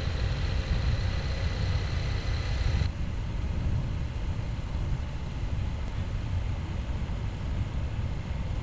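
Steady low rumble of wind and a motor vehicle's engine, picked up from a vehicle moving at speed. About three seconds in the sound changes abruptly as a faint high whine and hiss drop away.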